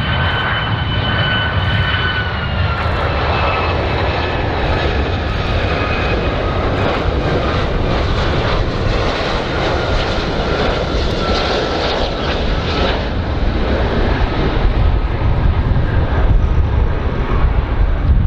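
Boeing 757 airliner's twin turbofan engines on final approach: a steady, loud low rumble with a thin high engine whine that steps down in pitch a couple of seconds in.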